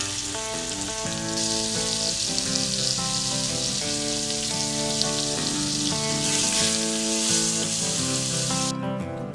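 A beef roast sizzling as it sears in hot oil in a skillet, with background music playing throughout. The sizzle cuts off suddenly near the end, leaving only the music.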